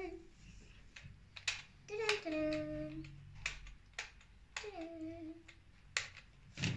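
A girl humming three short wordless notes, each falling in pitch, while sharp plastic clicks come from the LOL Under Wraps doll capsule she is turning in her hands.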